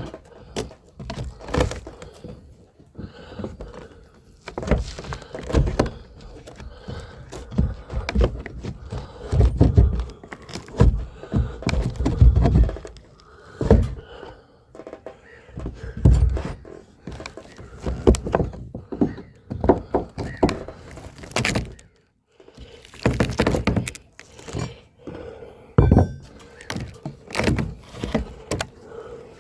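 Irregular wooden knocks and cracking as a deck covering board, stuck down with sealant, is worked loose and lifted off a wooden boat's deck.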